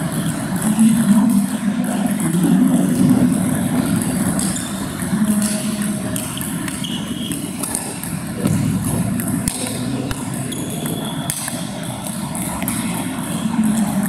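Table tennis balls clicking off bats and tables from rallies at several tables in a hall, irregular sharp ticks over a steady low rumble.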